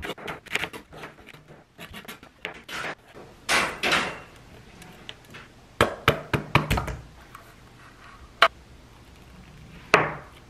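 Kitchen knife chopping green onion on a cutting board in quick strokes, then scattered knocks and scrapes as a can of Spam is emptied onto the board, ending in a sharp knock as the knife cuts into the Spam.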